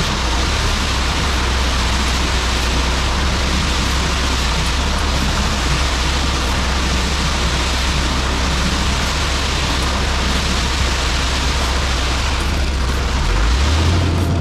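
Concrete mixer truck's diesel engine running while the truck creeps forward with its drum discharging leftover concrete down the chute, under a steady loud hiss. The engine's low hum grows louder near the end.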